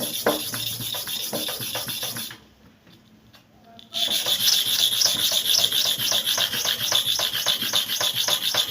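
Steel hair-clipper blade rubbed by hand back and forth on a sharpening surface in quick, even scraping strokes. It stops for about a second and a half partway through, then starts again more strongly. This is the lapping of the bottom blade's face to grind out the dark, unsharpened patch in its middle.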